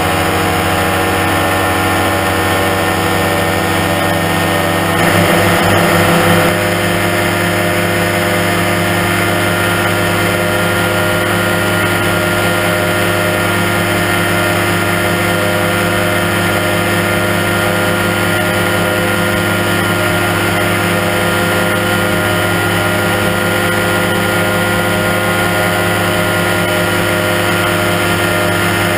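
Engine and propeller of an Aerochute powered parachute microlight running steadily in cruising flight, a constant drone. It gets briefly a little louder for about a second and a half, about five seconds in.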